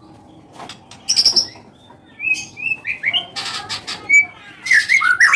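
White-rumped shama singing: after a quiet first second come harsh rasping bursts mixed with a quick run of short whistled notes that slide up and down, loudest near the end.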